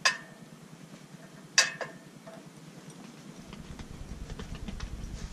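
Two sharp metallic clinks from the copper frying pan on the propane camp stove, about a second and a half apart, each with a short ring. A faint low rumble with scattered small ticks sets in about three and a half seconds in.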